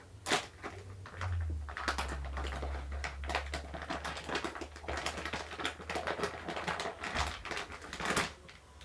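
Plastic packaging of a slime kit being handled and opened: a sharp click, then dense irregular crinkling and clicking of the wrapper that stops near the end.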